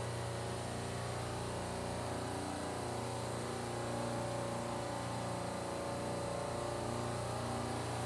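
Steady low hum of a supermarket refrigeration rack's compressors running while a circuit is pumped down.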